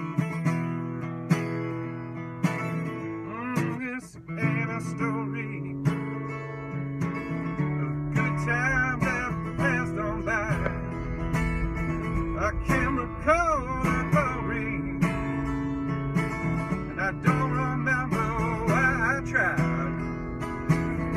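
Acoustic guitar being strummed, with a man singing over it from a few seconds in.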